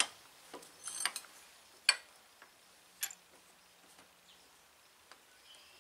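A handful of sharp metal clicks and taps in the first three seconds, the loudest about two seconds in, then a few faint ticks: an Allen wrench knocking against a corroded Honda Gold Wing front brake caliper clamped in a vise while its stuck pin screws are worked loose.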